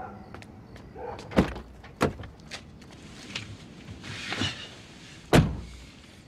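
Car door of a Mercedes-Benz coupe being shut, the loudest knock, about five seconds in. Two earlier knocks come about a second and two seconds in, over faint background noise.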